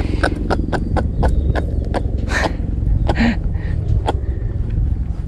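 Sharp clicks, about three a second, and a couple of short rustling bursts from handling a freshly landed small giant trevally in gloved hands, over a steady low rumble.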